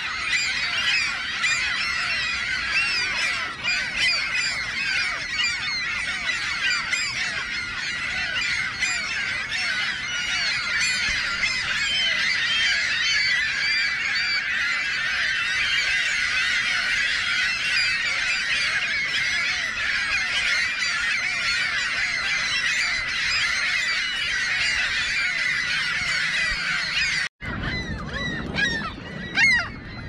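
A large nesting colony of gulls calling all at once: a dense, cacophonous chorus of many overlapping squawks and cries. Near the end it drops out for an instant and comes back thinner, with one short, louder noise just before the end.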